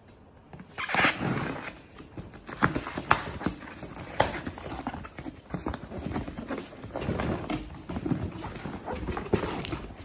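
Packing tape being torn off a cardboard shipping box, then the cardboard flaps handled and an inner cardboard product box lifted out, with scattered sharp cardboard knocks and rustling.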